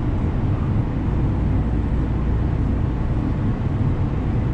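Metro E Line light-rail train running, heard from inside the car: a steady low rumble as it rolls along.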